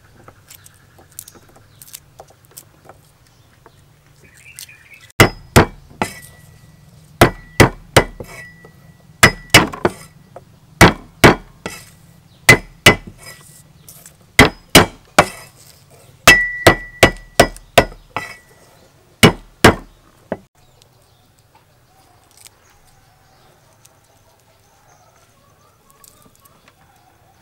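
A knife blade chopping garlic cloves on a thick round wooden chopping block. About two dozen sharp chops come in quick runs of two to six, from about five seconds in until about twenty, each with a short metallic ring. Before and after, faint clicks and rustles of garlic skins being peeled by hand.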